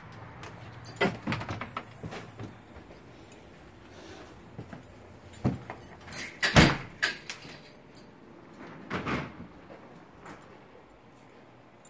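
A wooden interior door being handled: a run of clicks and knocks from the latch and door, the loudest about six and a half seconds in, with more knocks near the end.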